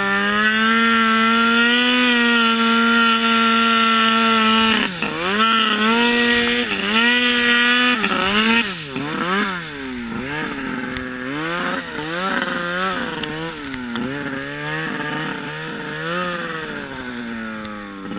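Turbocharged Arctic Cat M8 snowmobile's two-stroke engine held at high revs for about five seconds, dipping briefly, then revved up and down over and over as the throttle is worked in deep powder.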